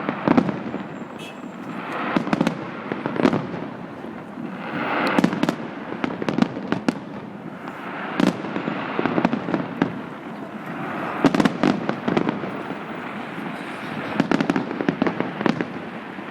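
Fireworks display going off: many sharp bangs and crackles that swell in waves every few seconds.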